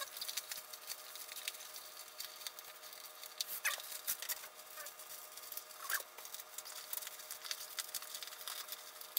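Rustling and crinkling of plastic packaging and merchandise being handled, with many light clicks and a few louder crackles.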